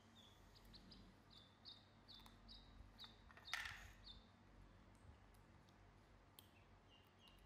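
Ducklings peeping softly: a run of short high peeps, two or three a second, that stops about four seconds in and resumes near the end. A brief scratchy noise comes about three and a half seconds in.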